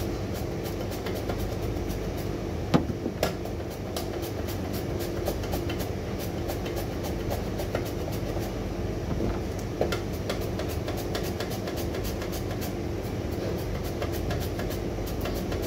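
Steady mechanical hum of kitchen machinery under many light, irregular clicks and taps from vegetables being worked by hand, with a few sharper knocks, the loudest about three seconds in and another near ten seconds.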